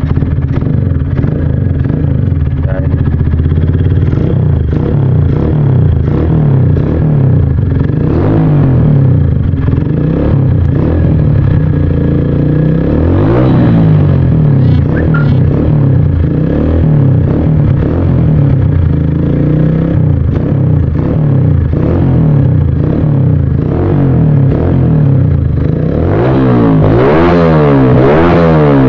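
Honda Mega Pro's stock single-cylinder four-stroke engine running loud through an aftermarket racing exhaust, idling with throttle blips: the revs rise and fall about eight and thirteen seconds in, then again several times in quick succession near the end.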